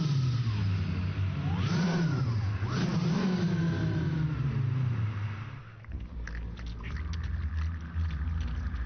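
Car engine revving: its pitch swells up and falls back twice, then about six seconds in it drops to a lower, steady rumble with scattered crackling.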